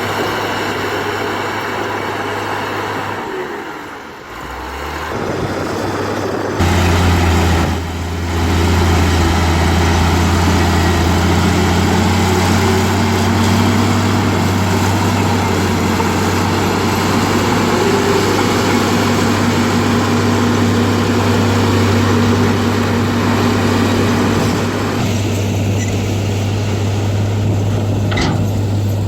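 Heavy diesel engine of earthmoving machinery running. It dips briefly about four seconds in, then steps up to a louder, steady working note about seven seconds in and holds there.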